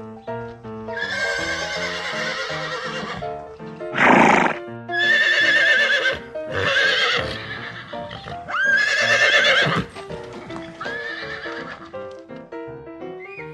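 A horse neighing over and over in quavering whinnies, with one short, loud, breathy burst about four seconds in. Background music with a simple stepping melody plays under it.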